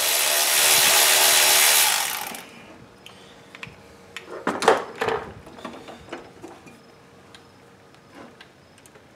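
A Milwaukee M12 cordless power ratchet runs for about two seconds, backing off the negative battery terminal bolt, then stops. Scattered clicks and a knock follow as the cable and tools are handled.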